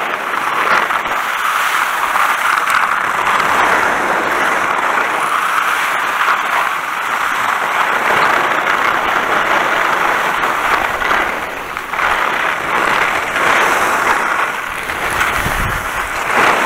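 Skis sliding over wet snow on a downhill run: a steady, loud hiss and scrape that eases briefly about twelve seconds in, mixed with some wind on the microphone.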